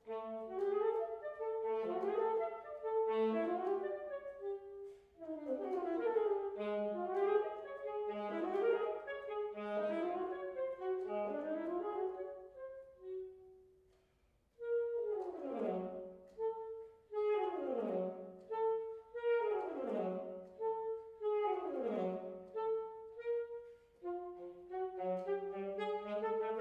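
Solo alto saxophone playing an unaccompanied classical piece in fast runs of notes. About halfway through there is a short pause, followed by a series of quick falling runs, then a rising phrase near the end.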